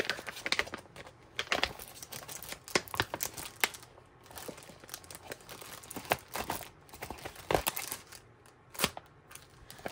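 Stiff plastic envelope and sheets of letter stickers rustling and crinkling as they are handled, with irregular sharp crackles and clicks.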